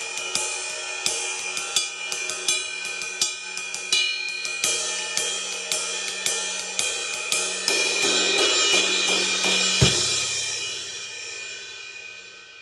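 Sabian 21-inch Raw Bell Dry Ride cymbal played in a steady pattern of strokes, with a clear ping over its ring. Near the end the wash builds up, a low thump lands at about ten seconds, and the cymbal rings out and fades.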